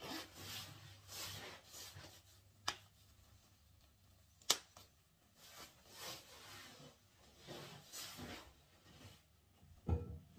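Clothing and gear rustling as they are handled, with two sharp clicks nearly two seconds apart and a thump near the end.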